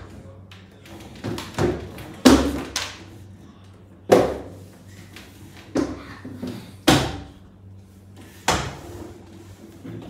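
A child thumping around a table: about eight loud knocks, irregularly spaced, a second or two apart.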